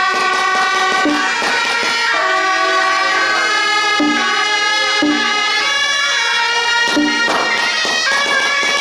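Suona (Chinese double-reed shawm) playing a traditional procession melody live, in long held notes that step from pitch to pitch.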